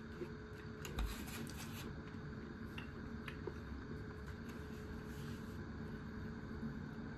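A plastic takeaway food tray set down on a cloth-covered table with a sharp knock about a second in, followed by a few light clicks of the plastic being handled, over a steady room hum.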